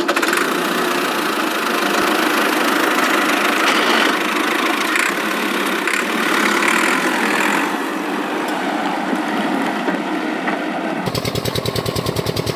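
Small electric water pump running steadily with a hissing, whirring noise. About 11 seconds in it gives way to a rapid, even rattling.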